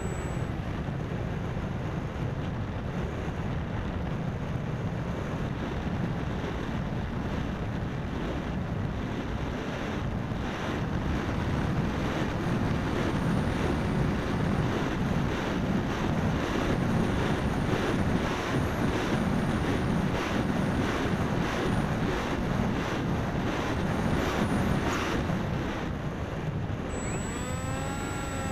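Wind rushing over the cockpit-mounted camera of a Parkzone Icon A5 foam RC plane in flight, mixed with its electric motor and propeller running. It grows louder and gustier from about a third of the way in.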